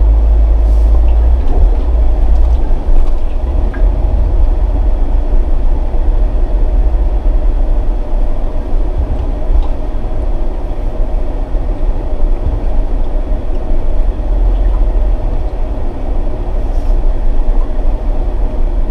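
Jeep driving: a loud, steady low rumble of engine, tyres and wind noise.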